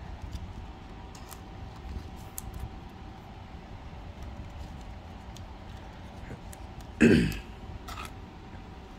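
Faint rustling and ticking of trading cards being shuffled and slid into a plastic penny sleeve. About seven seconds in, a person clears their throat once, short and loud, with a smaller sound just after.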